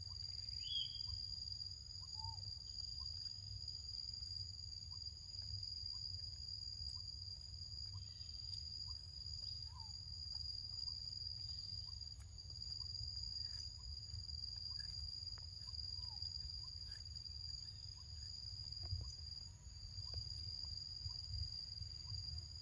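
Steady high-pitched drone of forest insects, several constant tones held without a break, over a low rumble. Faint short chirps and clicks are scattered through it.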